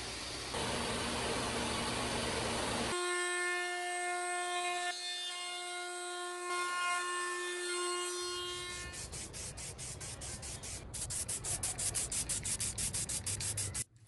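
Woodworking power tools in turn: a scroll saw cutting wood, then a router spinning with a steady high whine. Near the end comes a fast rhythmic rasping of about six strokes a second, which cuts off suddenly.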